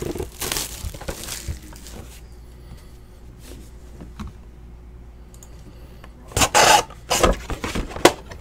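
Trading cards being handled and slid against one another: a rustle at first, a quiet stretch with a few faint ticks, then several short, loud scrapes near the end.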